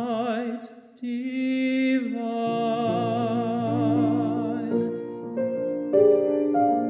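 A young man singing solo with vibrato over piano accompaniment, with a short breath early on; his voice stops a little past halfway and the piano carries on alone.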